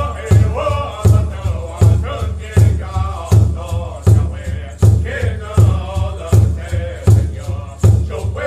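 Background music with a heavy, steady beat about every three-quarters of a second and vocals chanting over it.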